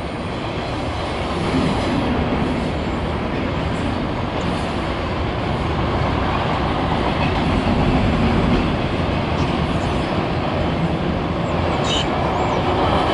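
Norfolk Southern intermodal freight train rolling past, its double-stack container cars making a steady rumble and rattle of wheels on the rails.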